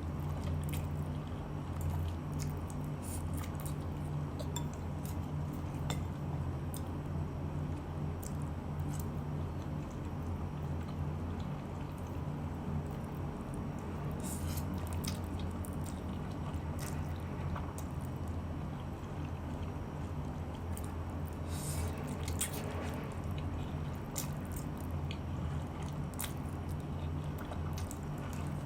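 A person eating and chewing close to the microphone, with scattered small clicks and a few short wet bursts, over a steady low hum.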